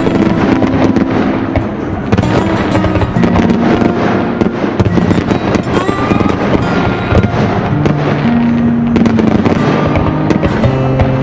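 Aerial firework shells bursting and crackling in quick succession, over music with long held notes.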